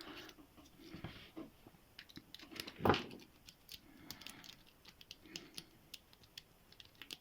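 Faint metallic clicks and scrapes of a pick and tension wrench working the pins of a Qualtec padlock, rocking it to try to open it. One louder knock comes about three seconds in.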